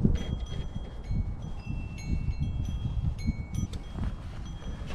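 Wind chimes ringing: a scattered run of clear high notes at several pitches, each struck sharply and dying away, over a low rumble.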